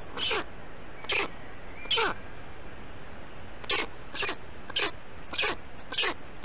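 Black stork chick giving short squealing distress calls, each dropping in pitch, about eight in a row with a short pause after the third, as an adult stork attacks it in the nest.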